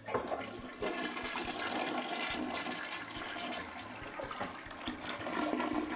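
Toilet flushing: a rush of water that starts suddenly and keeps going steadily as the bowl swirls and drains.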